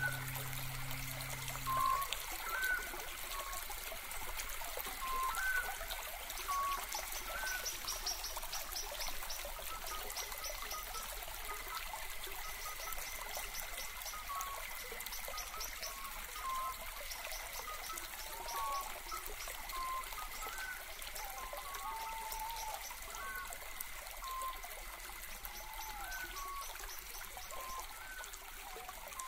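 Background music stops about two seconds in, leaving a steady trickling stream with short bird chirps scattered over it.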